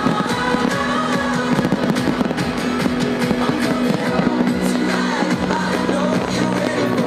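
Live band music from an outdoor stage sound system with held low notes, and aerial fireworks crackling and popping over it all the way through.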